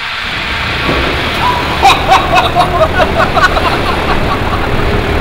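Wind-tunnel fans driving a strong gale, growing about half a second in, with a tarpaulin flapping and snapping in it. A person's voice cries out in short bursts between about one and three and a half seconds in.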